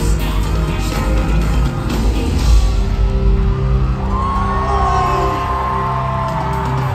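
Live pop music from an arena sound system, recorded from among the crowd: a steady bass line under sustained chords, with one long held note starting about four seconds in.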